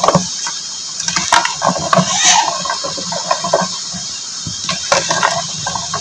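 A plastic spoon stirring a thick broth of mutton trotters and ground mash dal in an aluminium pot: irregular liquid sloshing and swishing, with short clicks scattered through it.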